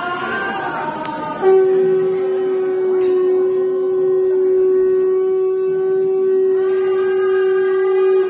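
A wind instrument sounding one steady note, starting about a second and a half in and held for about seven seconds.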